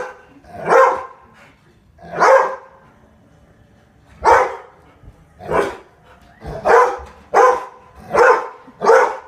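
A golden retriever barking about eight times in loud single barks, with longer gaps early on and quicker barks toward the end.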